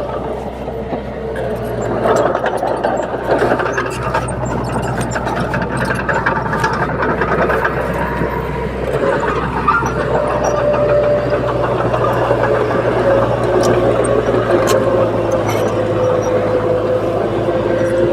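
Komatsu D30P crawler bulldozer running steadily under load: a continuous diesel drone with a wavering whine and scattered clicks.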